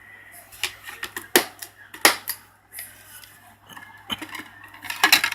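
Irregular sharp clicks and clacks of hard objects being handled, with a cluster of quicker clicks near the end.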